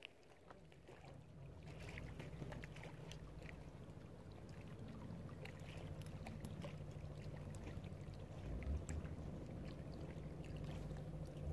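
An engine's low, steady hum that grows louder over the first couple of seconds and then holds, with scattered light clicks over it.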